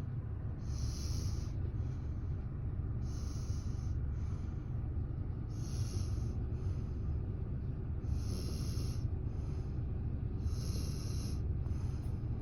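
A sleeping baby snoring, a breathy hiss about every two and a half seconds, over the steady low rumble of car road noise.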